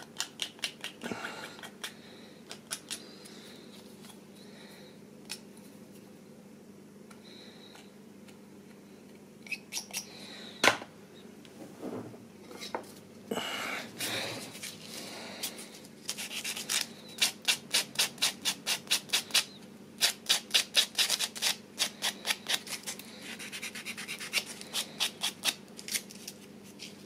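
Hard plastic model-kit parts being cleaned up by hand, a tool worked in quick back-and-forth strokes to take off the sprue gate nubs, in rapid runs of about three strokes a second in the second half, with scattered clicks and one sharp click before that.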